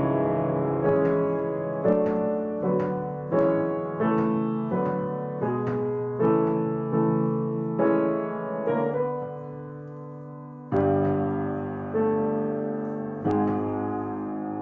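Bauer grand piano played in slow, sustained chords, each struck and left to ring and fade. A fuller, deeper chord comes about eleven seconds in, after a short lull.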